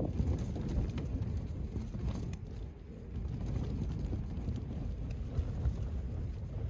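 Wind rumbling on the microphone inside a tent: a steady low rumble with no clear tones.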